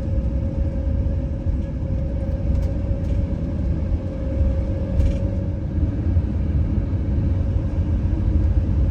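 Steady low rumble of an RV's engine and road noise heard from inside the cab while driving, with a faint steady whine.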